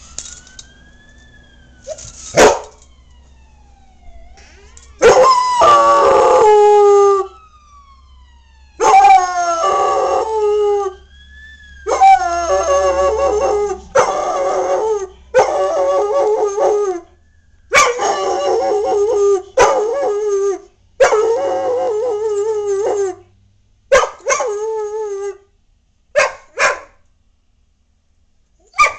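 German shepherd howling at passing fire truck sirens: a run of about eight long, wavering howls, each two to three seconds. The rising and falling wail of the sirens is heard faintly at the start, and the howling ends with a couple of short calls.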